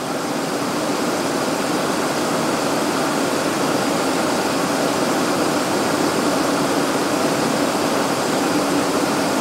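Steady rush of airflow and turbofan engine noise inside the cockpit of a Cessna Citation Encore in flight, with a faint steady low hum underneath.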